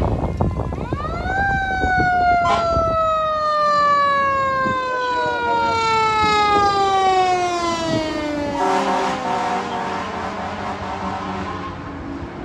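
Fire engine siren winding up quickly, then falling slowly in pitch for several seconds as the engine drives past. A louder burst of noise comes about eight and a half seconds in.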